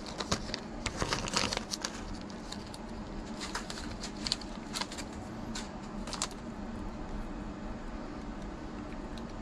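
Clear plastic bag crinkling as a bag of replacement rubber drive belts is handled, in scattered crackles over the first six seconds, then only a low steady hum.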